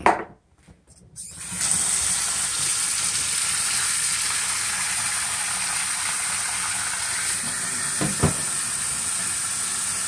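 Hoover SteamVac Widepath carpet cleaner switched on about a second in, then running steadily with a high-pitched hiss.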